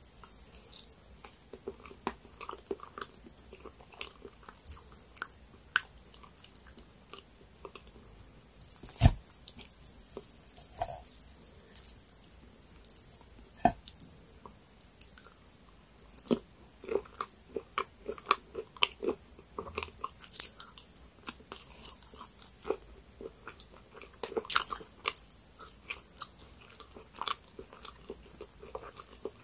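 Close-miked eating sounds: a fork clicking, wet chewing of soft cake, and sharp crunches, likely from bites of a caramelized nut tart. The crunches come thick and fast in the second half, and one loud snap comes about nine seconds in.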